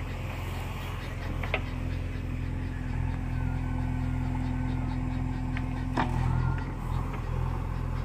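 JCB backhoe loader's diesel engine running steadily as the bucket digs into loose soil. A steady whine is held from about a second and a half in until about six seconds, and sharp knocks mark its start and end.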